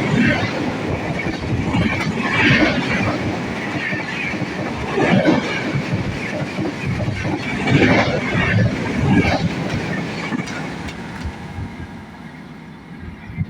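Train rolling past, its wheels clattering over the rail joints in recurring surges over a steady rumble; it fades near the end.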